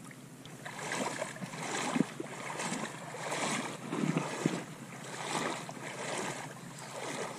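Shallow seawater sloshing and splashing in uneven washes about once a second.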